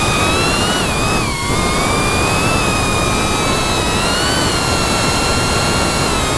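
FPV quadcopter's brushless motors and propellers whining, the pitch rising and falling with the throttle over a steady rushing noise, with a short dip about a second and a half in.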